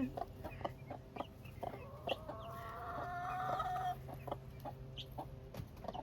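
A mother hen clucking among three-week-old guinea keets, with many short high peeps and one long drawn-out call that rises slowly in pitch from just under 2 seconds in until about 4 seconds in.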